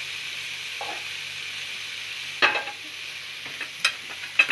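Chicken and pineapple skewers sizzling steadily in hot oil in a frying pan, with a few sharp clicks, the loudest about two and a half seconds in.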